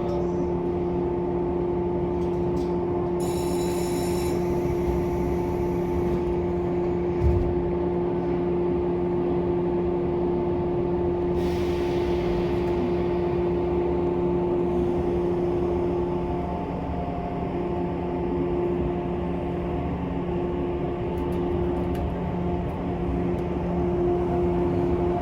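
Cabin sound of a 185 series electric multiple unit train running: a steady rumble of wheels on rail with a constant electrical hum from the on-board equipment. A brief high-pitched tone comes about three seconds in, and a short hiss around eleven seconds.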